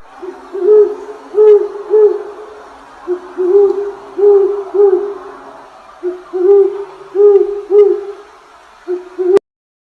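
A bird's hooting calls: short rising-and-falling hoots in runs of three or four, about two a second, with brief pauses between the runs. They cut off abruptly near the end.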